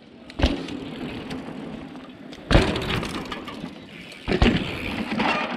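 Three heavy thumps about two seconds apart, each followed by a second or so of rattling and rushing noise: a mountain bike landing drops or hitting bumps while freeriding, its frame and chain rattling.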